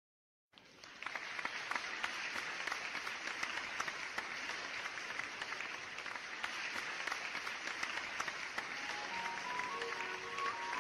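A group of people applauding, the clapping starting abruptly about half a second in. Near the end, music with held instrument notes begins under the clapping.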